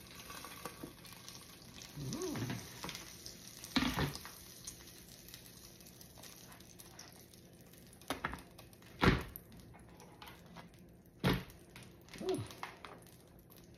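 Faint sizzling from the hot plates of a flip-style electric waffle maker as it is opened and the cooked waffles are lifted out, broken by several sharp knocks as the lid and a plate are handled.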